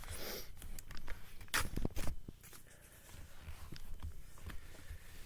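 Rustling and handling sounds with scattered sharp clicks and a few soft thumps, the loudest cluster about a second and a half to two seconds in.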